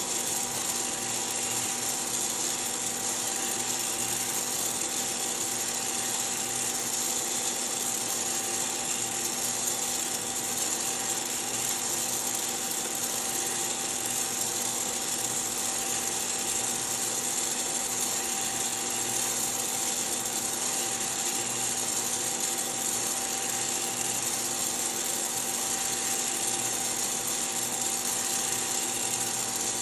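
Hottop coffee roaster in its cooling cycle: the cooling fan and the motor turning the stirring arm run as a steady hum with a strong hiss. Freshly roasted beans are being swept around the metal cooling tray.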